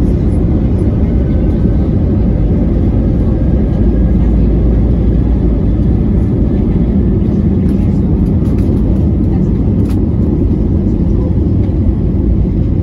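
Airbus A320-family airliner's jet engines at full takeoff thrust, heard from inside the cabin, with the loud, steady rumble of the takeoff roll and climb-out. The deepest rumble eases a little about halfway through.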